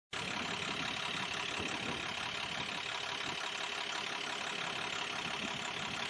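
Fire truck engine idling steadily, with an even hiss over it.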